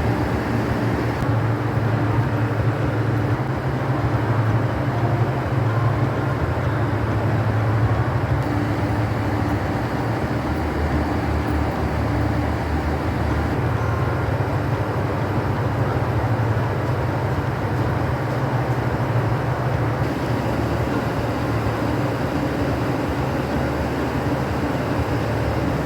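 KiHa 85 series diesel railcar running steadily: an even low engine drone from its Cummins diesels under the noise of the wheels on the rails.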